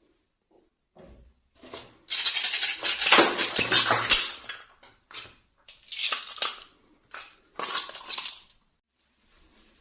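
Plastic toy packaging and doll pieces being handled: a long crackling, clattering burst about two seconds in, then two shorter bursts near the end.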